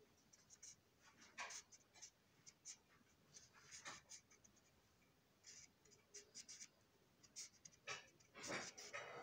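Faint, irregular scratching strokes of a writing-type tool drawn along the moulded ribs of a plastic O gauge box car as the ribs are recoloured, with a longer run of strokes near the end.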